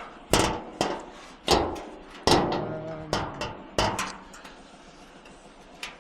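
A series of sharp metal bangs and clanks, about six in four seconds and another near the end, some ringing briefly, as a scrap water bowser casing is lifted and shoved onto a loaded scrap pile.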